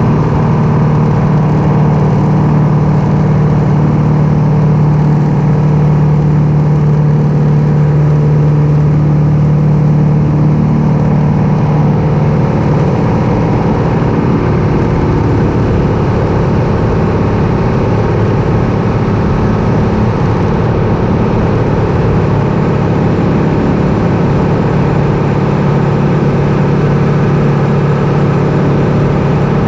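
Light aircraft piston engine droning steadily. Its strong low hum weakens a little under halfway through and comes back strongly near the end.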